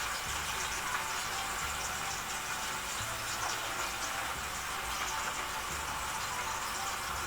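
Sliced potatoes sizzling steadily in hot frying oil.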